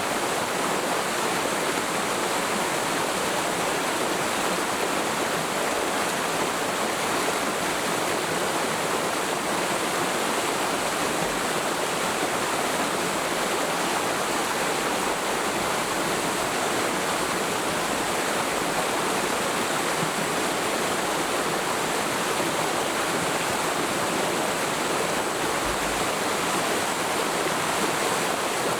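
Mountain stream flowing steadily, a continuous rush and splash of water over rocks.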